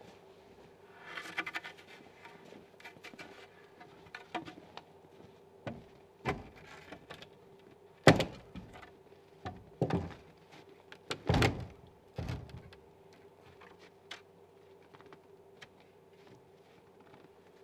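Log house being levered up with a long iron pry bar under its sill: a series of irregular knocks and creaks of wood and iron, the loudest about eight and eleven seconds in.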